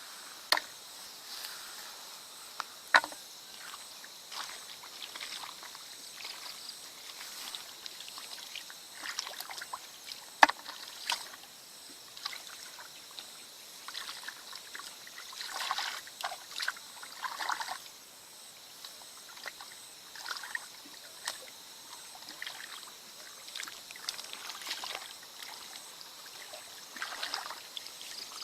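Water sloshing and splashing in irregular bursts, with a few sharp knocks now and then, as during wading cast-net fishing.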